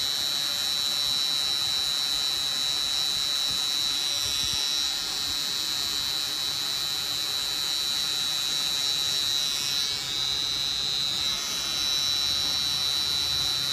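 Permanent-makeup tattoo machine pen running at the eyebrow with a steady high-pitched whine, its pitch wavering briefly about ten seconds in.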